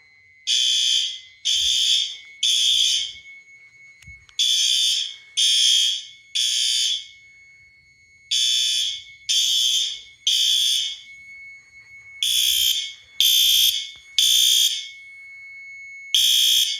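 Synchronised fire alarm horns on a Fire-Lite MS-10UD-7 panel sounding the temporal-three evacuation pattern: three short blasts, a pause, then repeating. The pattern runs four times and starts a fifth near the end. A faint steady high beep sits under the horns and grows louder about halfway through. The horns are loud.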